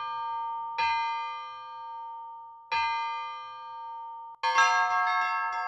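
Church bells: one bell struck slowly, about two seconds apart, each stroke ringing on and fading, then near the end a quick peal of several bells sets in at several strokes a second.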